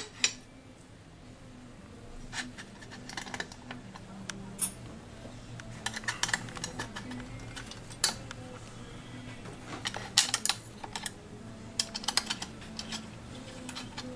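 Irregular light clicks and taps of small metal parts and hand tools being handled as a protective cover is fitted and fastened, over a faint steady low hum.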